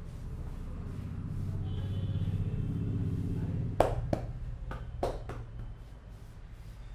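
Hands at work in a head massage: a low rumble swells and fades, then four short, sharp knocks come in two pairs about a second apart, the first the loudest.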